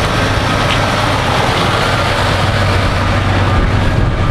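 A Scania 94D 260 fire engine's diesel engine running as the truck drives closely past, a steady low drone that eases near the end.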